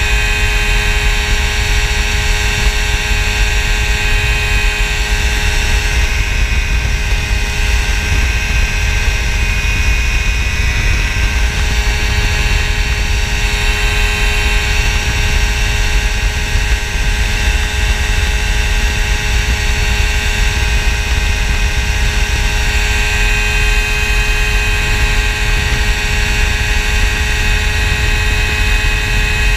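Phantom X1 ultralight's engine and propeller droning steadily in cruise flight, heard from the open cockpit with wind rushing past; the pitch shifts slightly right at the end.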